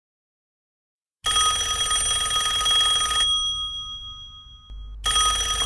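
Landline telephone bell ringing: a fluttering ring of about two seconds that dies away, then a second ring starting about five seconds in.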